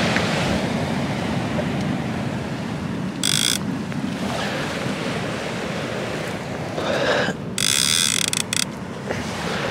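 Sea waves washing on the shore, with wind on the microphone. Two short noisy bursts cut in, one about three seconds in and a longer one about eight seconds in.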